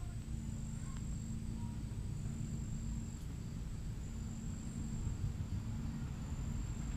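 Outdoor ambience: a steady low rumble with a thin, high insect trill that runs in stretches of a second or two and breaks off briefly between them.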